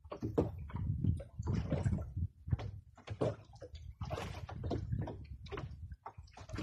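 Sea water slapping and sloshing against the hull of a small outrigger fishing boat, in irregular splashes.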